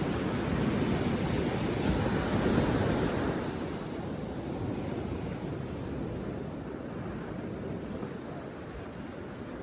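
Ocean surf washing on a beach, with wind on the microphone; louder for the first three seconds or so, then easing off.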